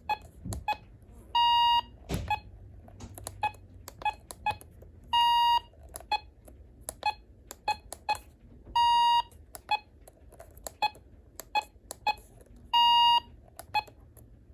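Weather alert radio's keypad beeps: short clicking key beeps about every half second as menu buttons are pressed, with four longer steady beeps of one pitch spaced about four seconds apart.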